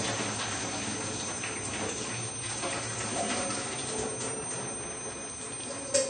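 Steady hiss and low hum of kitchen background noise, with faint off-camera clatter and a sharp click near the end.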